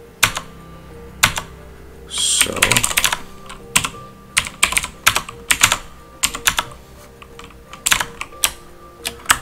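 Computer keyboard typing: irregular key presses, with a quicker run of keystrokes about two seconds in.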